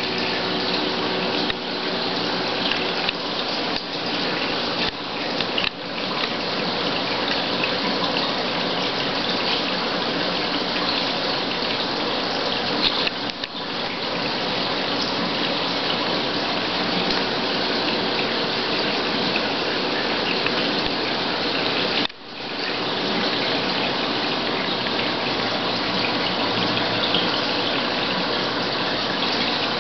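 Steady rushing and splashing of water circulating through a reef aquarium, with a faint steady hum underneath. It dips briefly about two-thirds of the way through.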